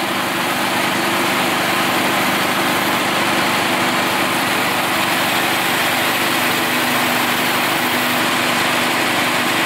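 A small engine idling steadily, with an even hiss over it.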